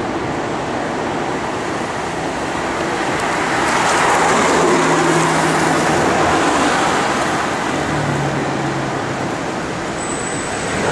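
Aston Martin DBS V12 engine driving past in city traffic, its steady note loudest about four to six seconds in, over a background of street traffic noise.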